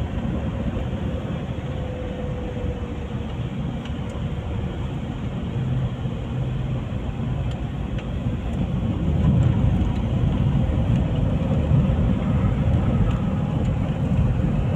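Car driving along a road, its engine and tyre noise heard from inside the cabin as a steady low rumble that grows louder about nine seconds in.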